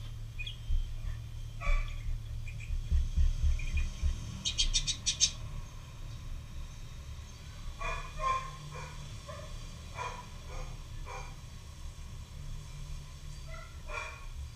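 Felt-tip permanent marker rubbing and squeaking on paper as an area is coloured in black, with soft thuds of the hand and pen on the paper and a quick run of scratchy strokes about four seconds in. Short squeaks come in clusters in the second half.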